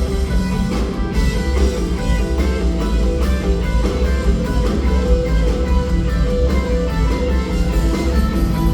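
Rock band playing live: electric guitar playing a run of quick notes over bass guitar and drum kit.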